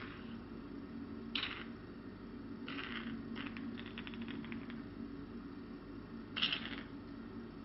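Steady low hum from the facial-care machine, with a few short rustling noises from gloved hands and tubing against the face, and a quick run of soft clicks about three seconds in.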